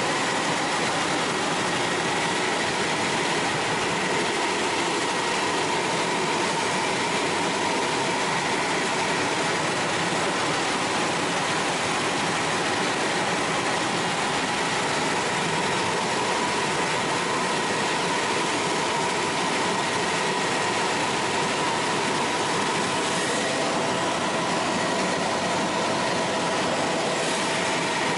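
Cabin noise of a Bell 206L4 LongRanger turbine helicopter in cruise: a steady rotor and engine drone with a constant high whine.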